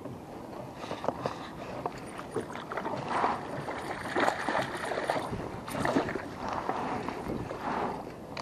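Hooked trout thrashing and splashing at the water's surface beside a kayak as it is reeled in. The splashes come irregularly and are heaviest through the middle.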